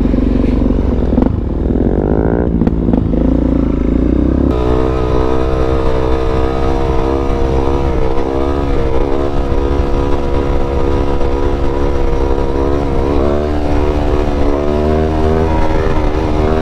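Motorcycle engine running while riding. The pitch falls and rises in the first few seconds as the bike slows and picks up again, then holds fairly steady as it cruises.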